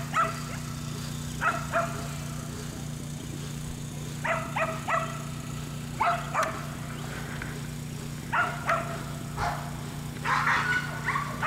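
A dog barking, two or three sharp barks at a time every second or two, with a quicker run of barks near the end, over a steady low hum.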